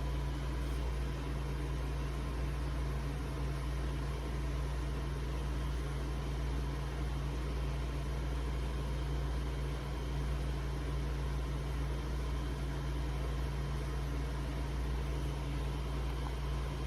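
Steady low hum with an even hiss, like a fan or appliance running.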